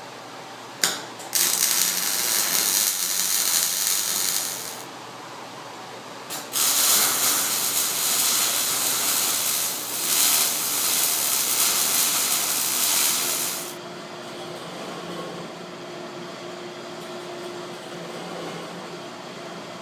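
MIG welder running two welds on steel pipe, a steady sizzling crackle for about three and a half seconds and then about seven seconds, each started with a sharp click as the arc strikes and cut off abruptly.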